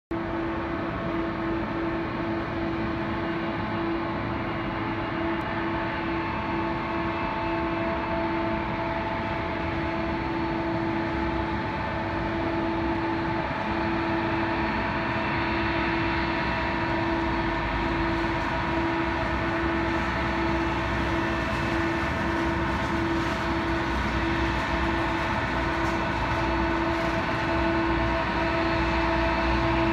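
Jet airliner's engines running at idle: a steady hum with several held tones over a broad hiss, the low rumble growing louder from about halfway through.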